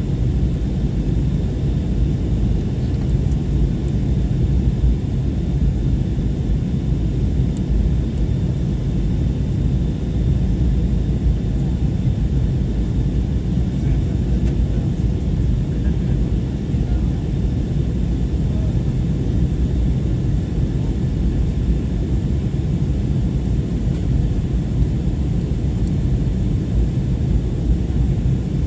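Steady low rumble of a passenger airliner heard from inside the cabin as it descends to land.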